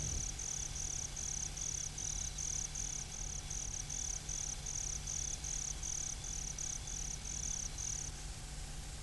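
An insect chirping in an even rhythm, about four high chirps a second, stopping about eight seconds in, over a faint steady low hum.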